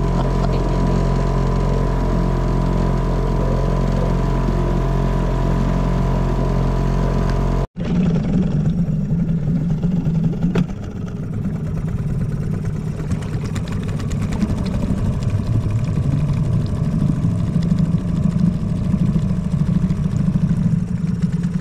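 Boat engine running steadily under way. About eight seconds in the sound cuts off abruptly and comes back as a rougher, noisier engine drone.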